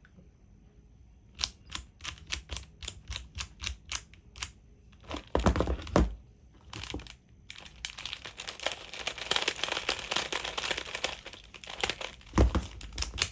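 Plastic tiles of a Rubik's Cube sliding puzzle clicking as they are pushed from slot to slot: a string of separate clicks, then a rapid rattling run of many quick slides, with a couple of heavier knocks among them.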